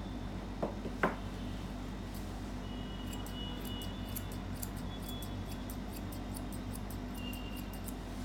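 Steel grooming scissors snipping through a Maltese's leg coat in a quick run of short crisp cuts, several a second, starting about two seconds in. Two light knocks come about a second in, over a steady low hum.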